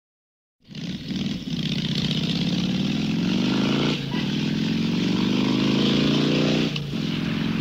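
Motorcycle engine pulling hard under acceleration, cutting in about half a second in. Its pitch climbs steadily, drops at a gear change about four seconds in, then climbs again and drops once more near the end, over a rushing haze of wind noise.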